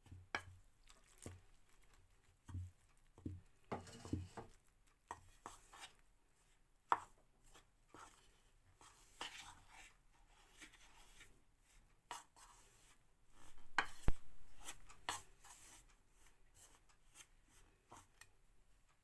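A spoon stirring flour and water into a stiff dough in a bowl: irregular scrapes and knocks of the spoon against the bowl. A louder clatter of knocks comes about two-thirds of the way through.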